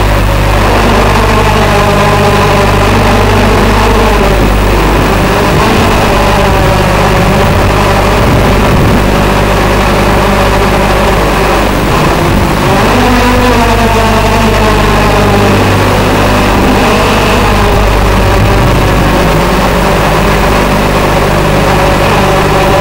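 TBS Gemini hexacopter's electric motors and propellers buzzing in flight, several tones rising and falling together as the throttle changes, over a steady low hum.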